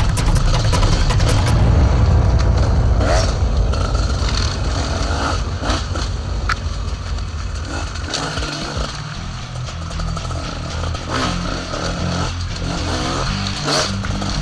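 Dirt bike engine running and revving under a rider on a rough trail, with several sharp knocks and brush scraping against the bike.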